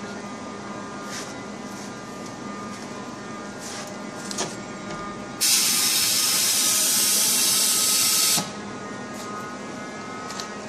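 Homemade thermoforming vacuum machine running with a steady hum and whine. About five seconds in, a loud hiss of rushing air starts abruptly, lasts about three seconds and cuts off sharply.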